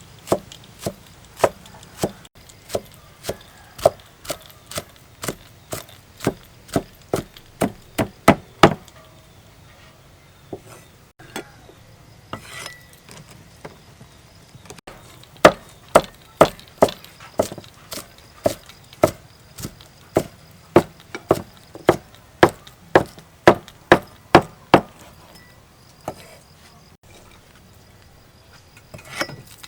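Knife chopping on a wooden cutting board in steady strokes about twice a second, stopping for several seconds midway with only a few stray knocks, then chopping again in a second run.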